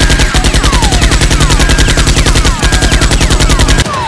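Automatic machine-gun fire sound effect: long bursts of rapid, evenly spaced shots, about a dozen a second. The fire breaks briefly about two and a half seconds in and cuts off near the end.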